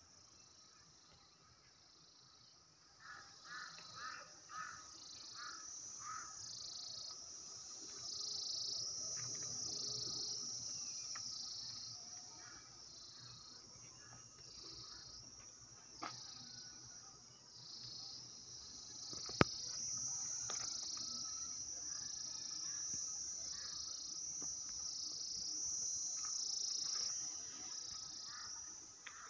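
Insects calling in a high, pulsing chorus that swells and fades about once a second, starting about three seconds in. A single sharp click comes about two-thirds of the way through.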